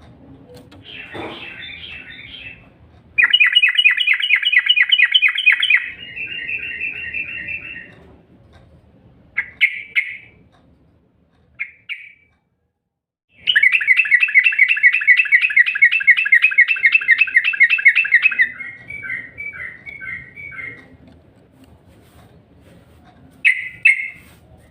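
Yellow-vented bulbul (trucukan) singing in long, rapid chattering trills, two of them, the second and longer one about five seconds, each slowing into a few separate notes at its end, with short single calls in between. This is the fast, continuous 'ngropel' style of song used as a lure to set other trucukan singing.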